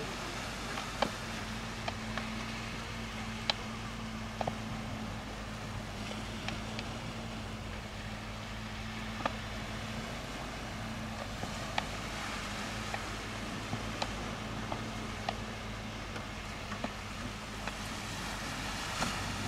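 A steady low engine-like hum, with scattered faint clicks.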